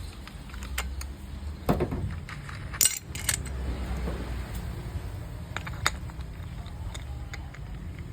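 Small metal parts being handled, clinking and clicking against each other and a hard surface, with a few sharp clicks and a steady low hum underneath.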